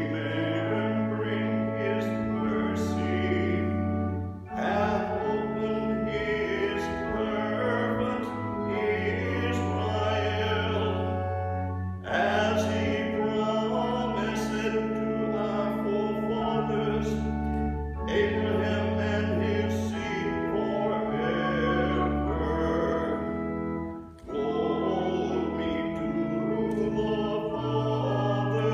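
A hymn sung to organ accompaniment: sustained organ chords under voices, moving in phrases of a few seconds with short breaths between them.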